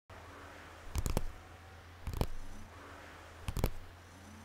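Pages of a paper folder being turned three times, each turn a short crisp paper snap, over a steady low electrical hum.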